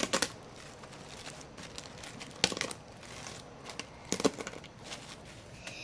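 Corn chips being crushed, crackling in short bursts: one at the start, one about two and a half seconds in, and one about four seconds in, with faint crackles between.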